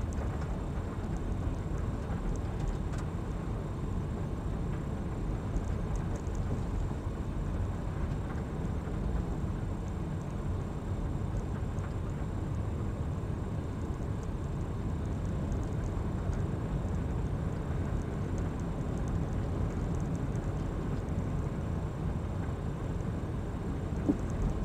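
Steady low rumble of a car's engine and tyres heard from inside the cabin while driving slowly on a town street, with a single short knock near the end.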